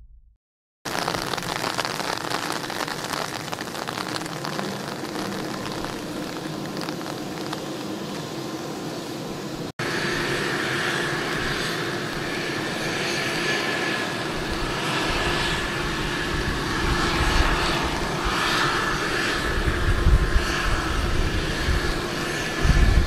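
AgustaWestland AW101 Merlin helicopter starting up: a steady turbine whine over a loud hiss, with a second, higher whine joining after a cut about ten seconds in. Low gusty rumble comes in near the end.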